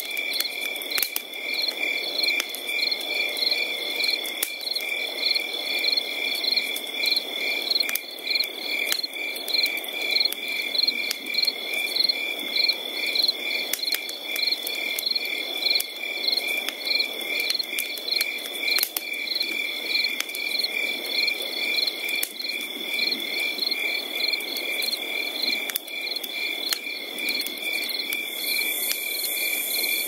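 Insect chorus of crickets: a steady high trill under rhythmic chirping at about three pulses a second, with a low hiss beneath. A still higher buzzing insect joins near the end.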